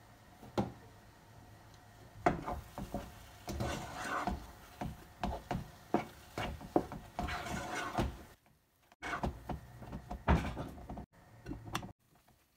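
Wooden spoon stirring thick semolina halva in a nonstick frying pan: irregular scrapes and knocks of the spoon against the pan, with two short pauses in the second half.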